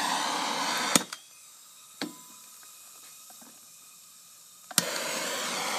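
Handheld gas torch hissing steadily. The hiss stops with a click about a second in, leaving quiet with one faint click, then starts again with a click near the end.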